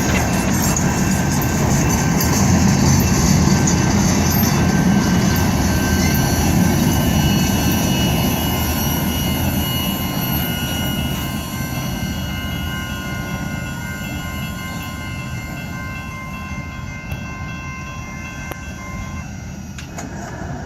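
A freight train's cars rolling past: a steady rumble with high wheel squeal, fading gradually as the train moves away.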